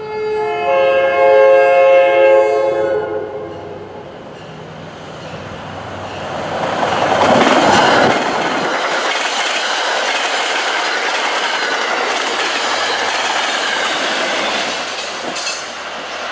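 MBTA commuter train's air horn sounding one long chord blast as the cab car approaches, then the rising rush and steady wheel clatter of passenger coaches passing close by.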